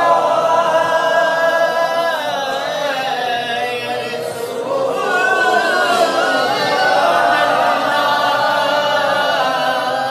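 Unaccompanied male singing of a Punjabi naat, in long held notes that slide and bend in pitch, with no instruments.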